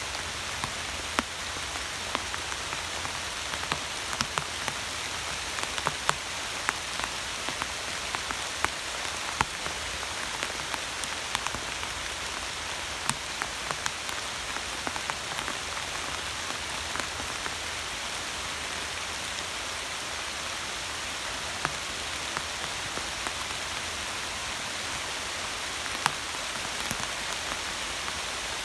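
Steady rain falling: an even hiss, with frequent sharp ticks of single drops striking close by.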